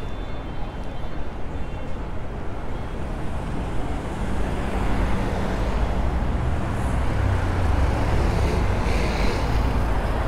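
Road traffic on a city street: cars driving past, with engine and tyre noise that swells about four seconds in as a car approaches and goes by.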